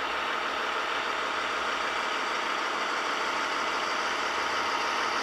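The sound decoder of an H0-scale V60 diesel shunting locomotive model playing a steady diesel engine sound through the model's small speaker.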